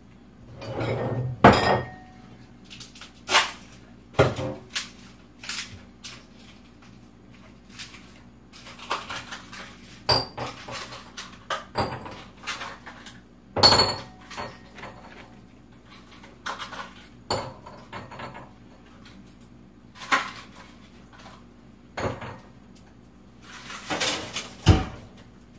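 Dishes and cutlery clinking and knocking, an irregular clatter every second or so, with the loudest knocks about 14 s in and near the end.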